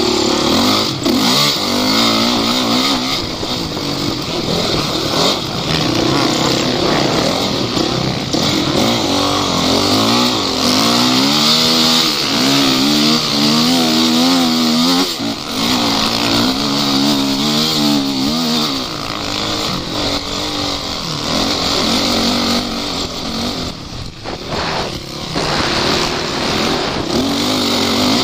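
Off-road vehicle engine running hard and revving, its pitch rising and falling again and again, most strongly in the middle of the stretch, over a steady hiss of noise.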